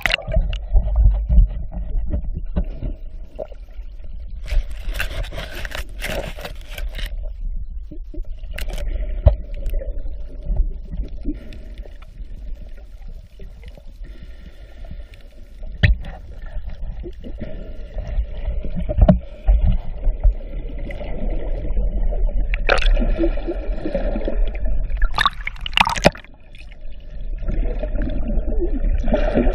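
Underwater sound picked up by a camera in its housing: a steady low rumble of moving water with scattered clicks and gurgling, and louder spells of bubbling a few seconds in and again near the end.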